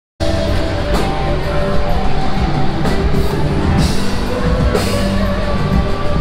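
Rock music with drums and guitar, cutting in suddenly just after the start and playing on loudly.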